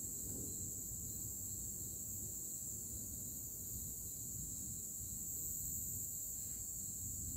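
Night insects chirring steadily in a high-pitched, unbroken chorus over a low, even rumble.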